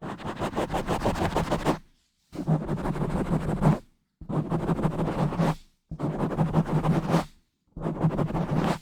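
A bare microphone being scratched and rubbed directly, in rapid scratchy strokes. The strokes come in five bursts of about a second and a half, each cut off by a brief silence.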